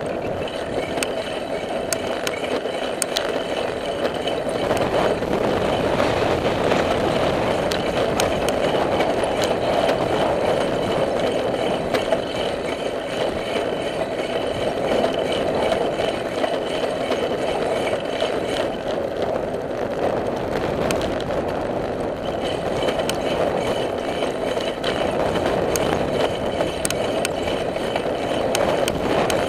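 Steady rushing noise of a bicycle rolling along a paved path, tyres and passing air, with scattered light clicks and rattles.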